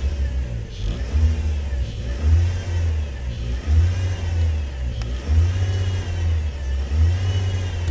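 Chevrolet Trailblazer engine being revved repeatedly from idle, its pitch rising and falling about five times.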